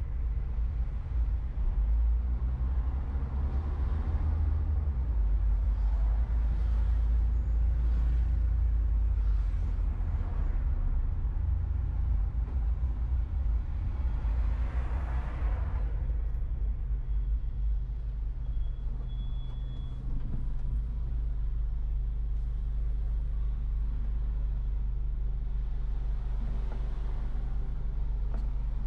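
City traffic heard from a car driving along an urban avenue: a steady low road rumble, with other vehicles passing several times, the loudest pass about fifteen seconds in.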